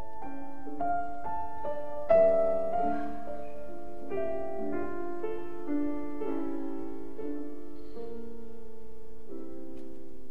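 Background piano music: a slow melody of single notes and chords, with a louder chord about two seconds in.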